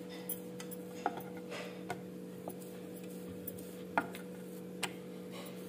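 Wooden rolling pin rolling out poori dough on a wooden board: scattered light knocks and taps of wood on wood, the sharpest about four seconds in, over a faint steady hum.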